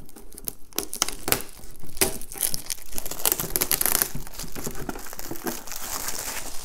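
Plastic shrink-wrap being torn open and peeled off a metal board-game tin, crinkling with many sharp crackles.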